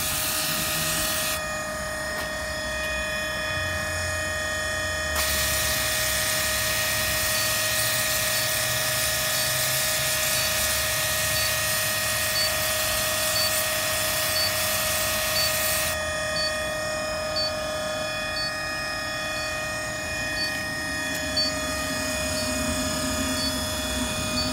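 Battery-powered pressure washer spraying water through an air-conditioner evaporator coil: the spray hiss stops about a second in, starts again after a few seconds, runs for about ten seconds, then stops, as the trigger is worked. A steady whine runs throughout.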